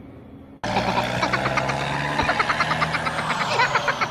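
A steady engine-like hum with a rapid, irregular ticking over it, starting abruptly about half a second in.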